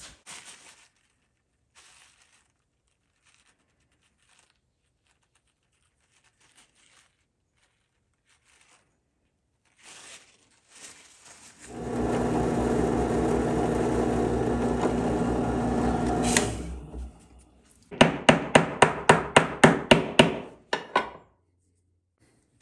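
A drill press motor runs steadily for about four seconds, with the duck call held under the chuck, then cuts off. Later comes a quick run of about a dozen even taps, roughly five a second.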